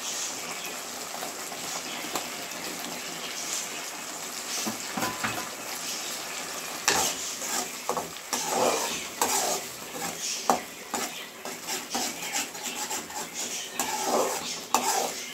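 Ground onion-tomato-chilli paste with turmeric frying in a pan, sizzling steadily while a spoon stirs and scrapes it against the pan. The scrapes and knocks come more often in the second half.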